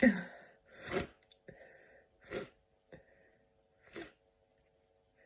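A person sneezing: one loud sneeze at the start, then three shorter, breathy bursts about a second and a half apart, each fainter than the last.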